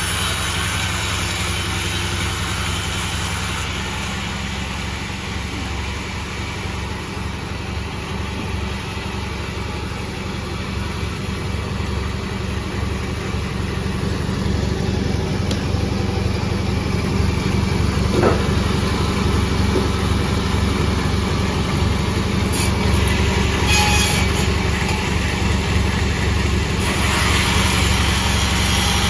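Sawmill machine running steadily while sawing sonokembang wood. A harsher, brighter hiss joins in near the end.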